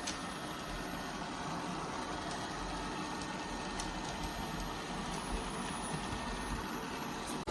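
ILIFE A12 Pro robot vacuum running with a steady, even mechanical hum and hiss from its suction motor and brushes.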